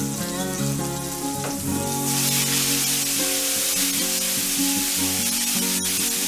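Button mushrooms sizzling as they fry in butter and meat fat in a nonstick pan, the sizzle growing much louder about two seconds in.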